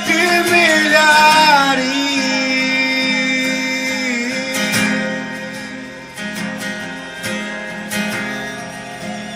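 Worship music: an acoustic guitar under a sung melody that slides between notes in the first two seconds. Then held notes with a few strummed chords, slowly getting quieter.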